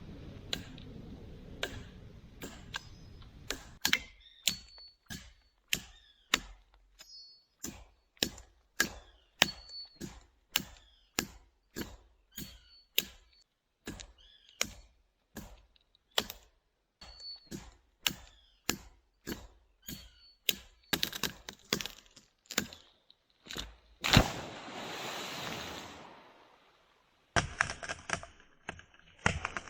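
Repeated chopping blows into dry wood, roughly one to two sharp cracks a second. Near the end there is one louder crack, followed by about two seconds of rustling and then a quick run of lighter knocks.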